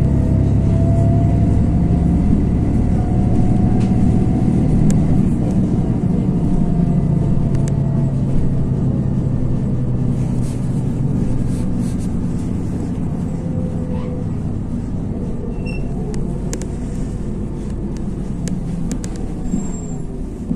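Cabin sound of a LiAZ 6213.22 articulated city bus under way: a steady engine and drivetrain rumble with a faint whine that drifts gently up and down in pitch, and small rattles and clicks from the body. The rumble eases slightly over the second half.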